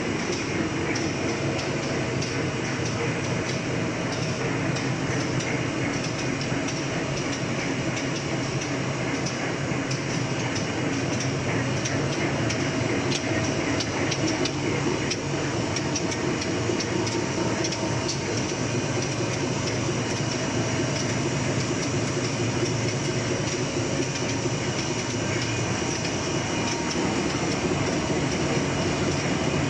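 Two-colour napkin paper printing and folding machine running steadily: a continuous mechanical rattle of its rollers and drive, with many fine ticks and an even level throughout.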